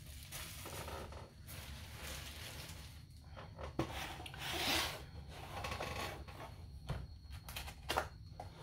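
A long cardboard box being handled, slid and turned over on a wooden tabletop: rubbing and scraping, loudest about four to five seconds in, with sharp knocks near four seconds and near the end.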